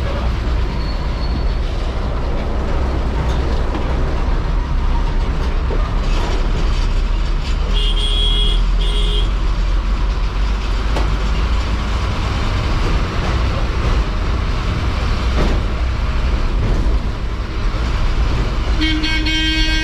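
Ashok Leyland bus diesel engine running steadily, heard from the driver's cabin as a heavy low rumble. About eight seconds in, a vehicle horn gives two short toots, and near the end a longer horn blast begins.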